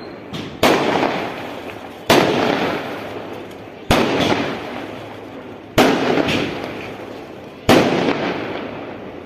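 A series of loud bangs, five in all about every two seconds, each dying away slowly in a long noisy tail.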